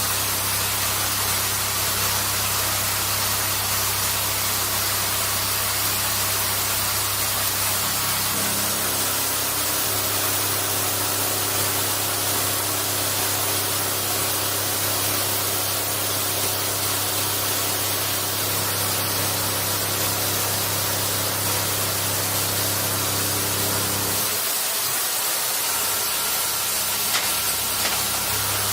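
Industrial cutting machine running: a loud, steady hiss over a low machine hum. The hum shifts about ten seconds in and briefly drops out near the end.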